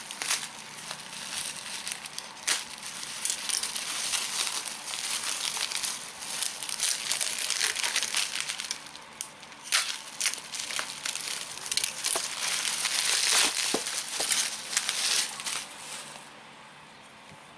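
Plastic bubble wrap crinkling and crackling as it is cut open with a knife and pulled off a small cardboard box, with many sharp crackles; the crinkling stops shortly before the end.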